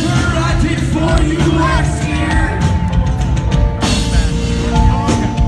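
Rock band playing live at full volume: drum kit, guitars and held notes, with singing in the first couple of seconds.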